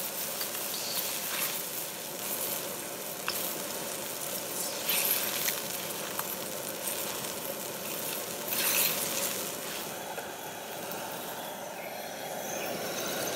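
Water heating in a hand-hammered carbon steel wok over a high-pressure propane wok burner: a steady sizzling hiss as bubbles form on the hot bottom of the wok, swelling into louder crackling spells a few times, then easing off slightly near the end.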